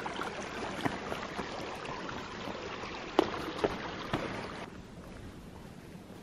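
Footsteps of a hiker in trail-running shoes on a stony path: a few scattered crunching steps over a steady rushing noise. Near the end the steps stop and the rushing noise drops to a quieter, thinner hiss.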